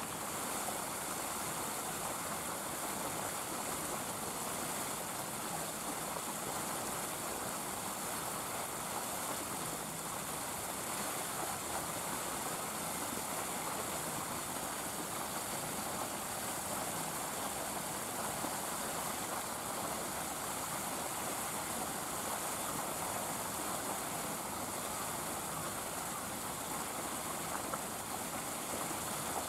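Steady rushing background noise, an even hiss with no separate sounds standing out.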